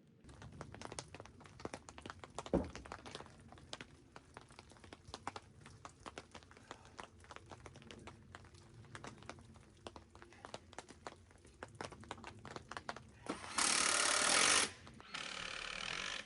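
Rapid, irregular clicking and knocking of construction work on a wooden frame, with one louder knock a couple of seconds in. Near the end come two loud hissing bursts of about a second each.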